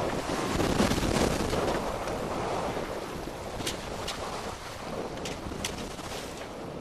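Wind buffeting the microphone and waves washing against a sailboat's hull while under sail in choppy water, with four sharp ticks in the second half.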